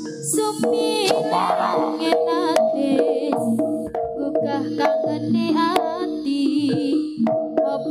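Live Javanese jaranan gamelan music: sustained bronze tones hold underneath, drum strokes fall throughout, and a wavering sung melody runs on top.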